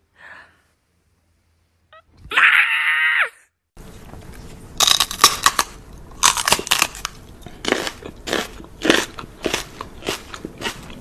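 A cat gives one short angry yowl about two seconds in. After that comes a run of irregular crunching, chewing mouth sounds from a man nibbling at a dog's ear.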